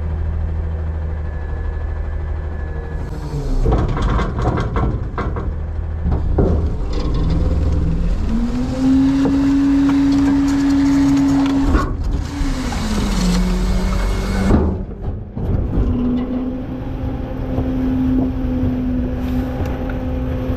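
Front-load garbage truck running its packing hydraulics. The engine revs up about eight seconds in and holds a steady higher pitch, drops back around thirteen seconds, then revs up again near sixteen seconds. A burst of clanking and rattling of metal and trash comes a few seconds in.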